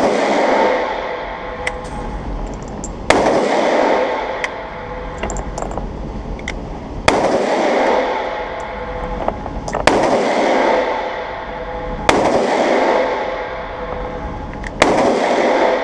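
AR-15 rifle fired in deliberate single shots, five in all, spaced roughly two to four seconds apart, each shot followed by a long echoing tail.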